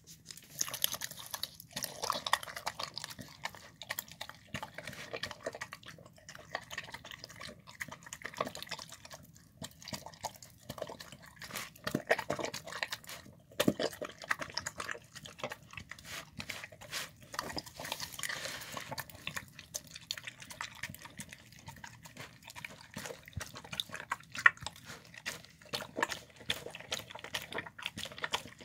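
A bulldog-type dog eating a wet mash from a plastic bowl: fast, irregular smacking, slurping and licking that goes on without a break.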